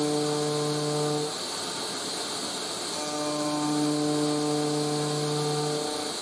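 CNC router milling an aluminium plate with a 4 mm end mill on an adaptive toolpath: a steady pitched cutting tone that stops about a second in and comes back at about three seconds, as cutting strokes alternate with non-cutting return moves. Under it runs the steady rushing of a vacuum cleaner.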